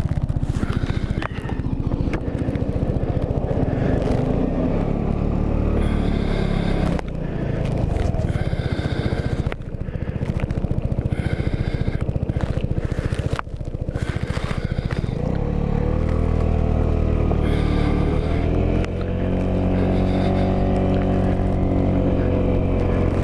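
Motorcycle engine running under way with wind noise over the microphone; the engine sound drops briefly three times, then its pitch rises and falls.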